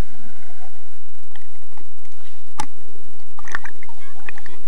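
Water noise against a waterproof camera moving underwater in a swimming pool and breaking the surface, with two sharp knocks in the second half and a few brief high chirps near the end.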